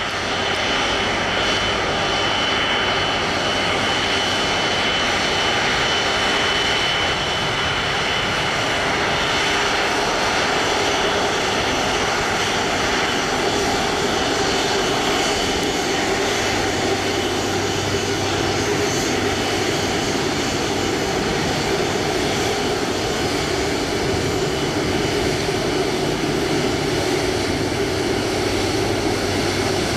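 Airbus A330-243's two Rolls-Royce Trent 700 turbofan engines at taxi power as the airliner rolls past, a steady jet rumble and whine. A high whining tone stands out for the first ten seconds or so, then fades.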